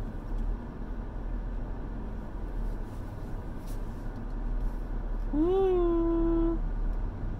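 Low steady rumble of a car's cabin while creeping forward in a queue. Near the end, one pitched note of about a second rises at its start, holds level, then stops abruptly.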